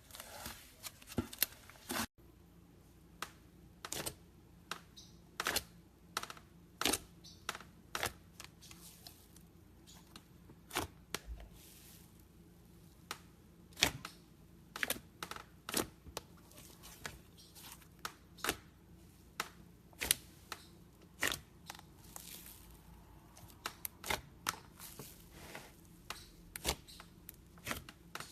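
Slime being squished and stretched in the hands, giving irregular sharp clicks and pops, a few a second.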